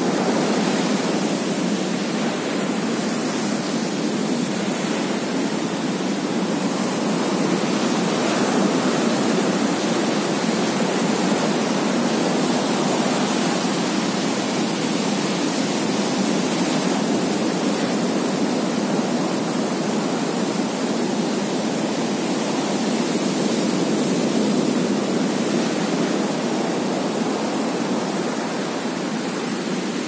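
Ocean surf breaking on a sandy beach: a steady rush of waves rolling in and foaming toward the shore.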